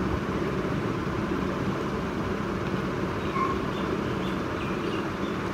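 Room air conditioner running: a steady hum with a rush of air.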